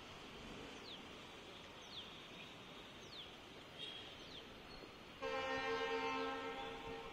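A horn sounds suddenly about five seconds in, a steady multi-tone blast held for about two seconds that fades near the end, over faint steady background noise.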